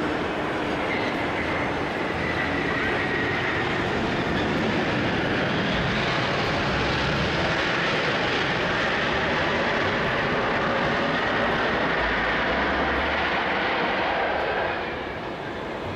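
Airbus A300-600 freighter landing: the steady rushing noise of its jet engines, with a thin whine, as it touches down and rolls out. The level drops suddenly near the end.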